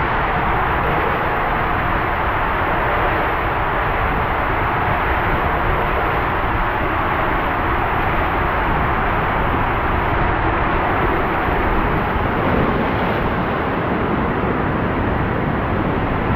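Rushing water and a rider sliding down an enclosed ProSlide PIPEline tube water slide: a loud, steady rush that runs on unbroken. Near the end the rider is in the splash pool among churning water.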